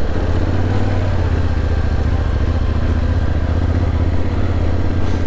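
Yamaha Ténéré 700's parallel-twin engine running steadily, with no revving up or down.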